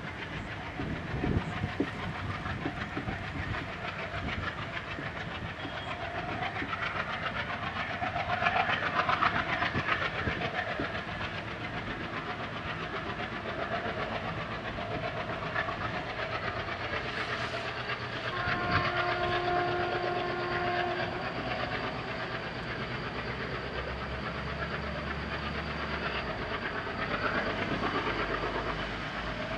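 WDM-3A diesel locomotive's 16-cylinder ALCo engine chugging under load as it pulls a passenger train away, the sound fading as the train recedes. About two-thirds of the way through, the locomotive's horn sounds one blast lasting about two seconds.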